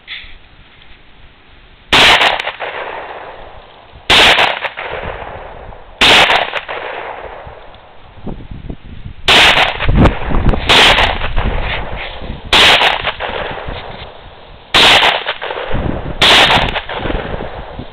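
A CZ52 semi-automatic pistol firing 7.62x25mm Tokarev military rounds: eight single shots spaced about one and a half to three seconds apart, each ringing out over a second or so.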